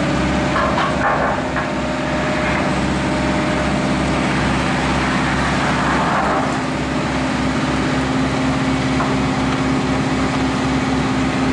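An engine running steadily at an even speed, with a constant hum and a low, regular throb.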